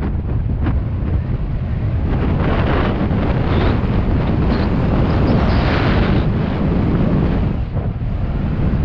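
Wind buffeting a helmet-mounted camera's microphone on a fast mountain-bike descent, over a steady rumble of tyres on a dry dirt trail, with a few short knocks from the bike.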